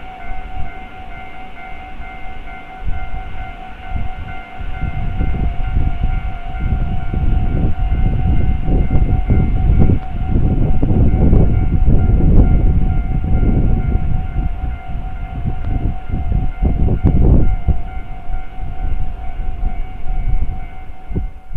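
Japanese level crossing's standard electronic warning bell ringing in a steady rapid pulse, while a train passes from about three seconds in, its wheels rumbling and clattering over the rail joints, loudest in the middle and easing near the end.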